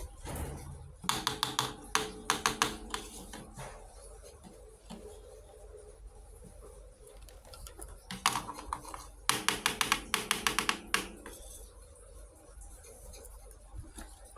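Small plastic toy kitchen pieces clicking and rattling together in quick runs as they are handled, with quieter stretches between the runs.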